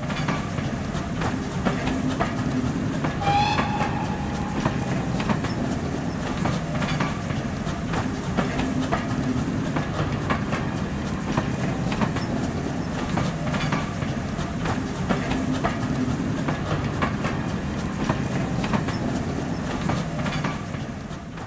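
A train running with a steady rumble and its wheels clicking over rail joints, with one short whistle about three seconds in.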